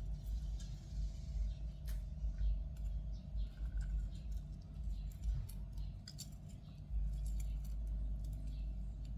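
Light kitchen handling sounds: scattered small clicks and taps over a low rumble, made while lime is squeezed into the mixing bowl of pork liver.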